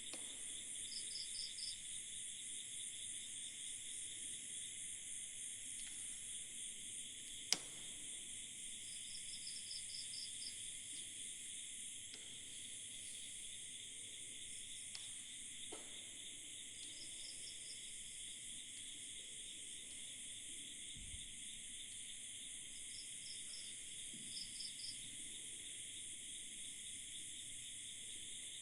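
Night chorus of crickets, a steady high-pitched shrilling with short chirping trills repeating every few seconds. A single sharp click sounds about a quarter of the way through.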